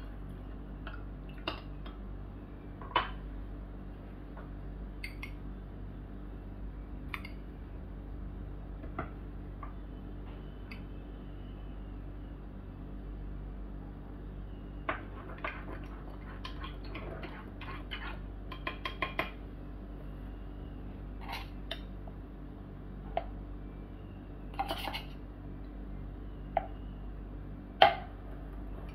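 A metal teaspoon clinking and tapping against a metal Turkish coffee pot and glass cups as powdered milk and coffee are spooned in. Scattered single taps, a quick run of taps about two-thirds through, and the sharpest clink near the end. A steady low hum runs underneath.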